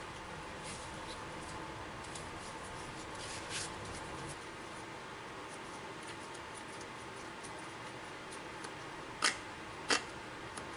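Scattered faint ticks and light clicks over a steady background hum, then two sharp clicks about half a second apart near the end.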